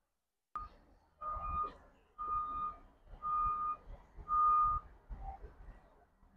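A series of four steady electronic beeps at one pitch, each about half a second long and about a second apart, ending with a shorter, lower tone.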